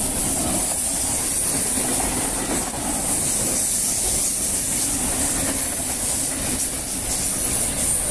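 A V set double-deck intercity electric train running past at speed: a steady, loud noise of wheels on rails with a strong high hiss.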